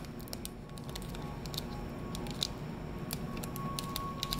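Crinkling of a small foil Shopkins blind-bag packet being squeezed and picked at by hand to tear it open, a scatter of sharp little crackles.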